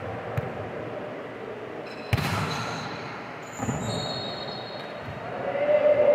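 Indoor volleyball practice: a volleyball struck sharply about two seconds in, with another hit a second and a half later, over steady gym noise. High sneaker squeaks sound on the court floor after the first hit, and the din grows louder near the end.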